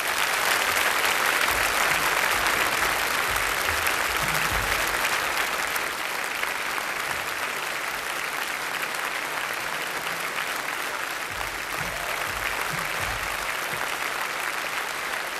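Concert audience applauding just as the song ends, the clapping loudest at first and easing off a little after about six seconds.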